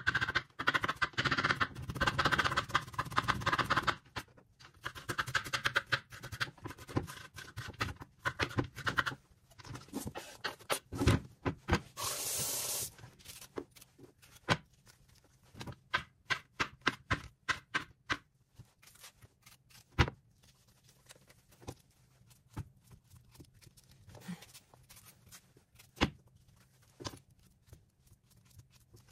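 Irregular clicks, knocks and scrapes of objects being handled in a small room. They come thick and fast for the first few seconds and are scattered after that, with a short hiss about twelve seconds in and a sharp knock about twenty seconds in.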